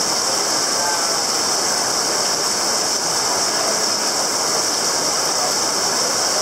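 Heavy rain pouring down onto a flooded street, a steady, even hiss.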